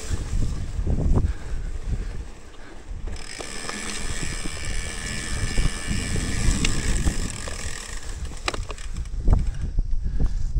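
Mountain bike's rear freehub buzzing as the rider coasts, from about three seconds in until about eight seconds in, over low wind and trail rumble on the microphone, with a couple of sharp knocks near the end.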